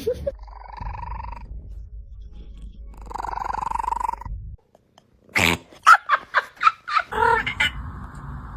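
Domestic cat making strange vocalisations: two drawn-out buzzy, pulsing calls, then from about five seconds in a quick run of short sharp clicks, the loudest sounds, with a short call among them.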